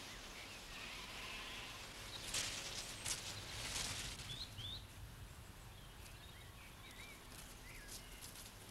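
Faint outdoor ambience with small birds chirping now and then, and a few soft rustling sounds about two to four seconds in.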